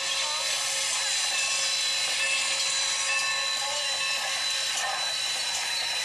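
Steady hiss of steam from Norfolk & Western 4-8-0 steam locomotive No. 475 standing with its train, heard thin and tinny through a television speaker, with a faint steady high whine.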